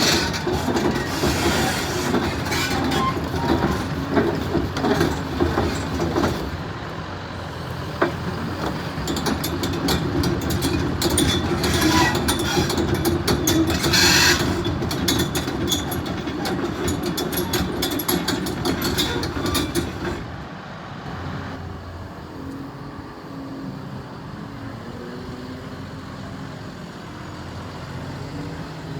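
CAT 340F excavator's diesel engine and hydraulics working, with frequent metallic clanking and rattling; about twenty seconds in the clatter stops and the engine settles to a quieter, steady run.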